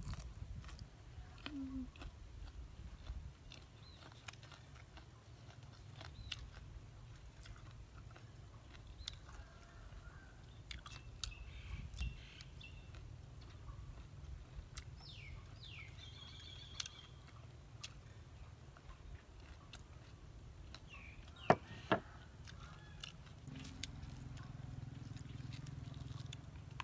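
A person eating with the fingers: quiet chewing and small mouth and lip clicks. A few short bird chirps come midway, and two sharp knocks close together a little past the middle are the loudest sounds.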